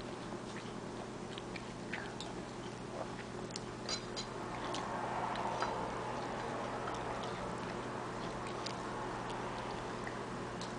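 Scattered small clicks and taps of a toddler eating from a stainless steel bowl on a plastic high-chair tray, with soft chewing.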